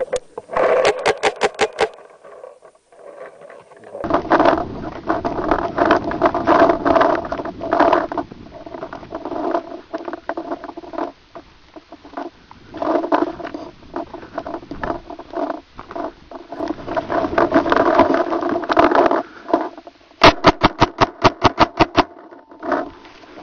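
Paintball marker firing rapid, evenly spaced strings of shots, about seven a second: one string near the start and another near the end. Between them comes a long stretch of busy, noisy movement sound.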